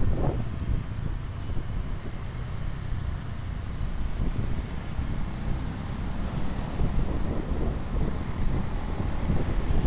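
Steady low rumble of a Honda Vario 125 single-cylinder scooter ridden slowly through traffic, mixed with wind buffeting the microphone.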